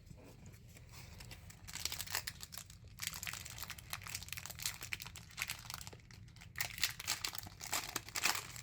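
Foil Pokémon booster pack wrapper crinkling as it is torn open by hand, in irregular crackles that grow busier after about two seconds.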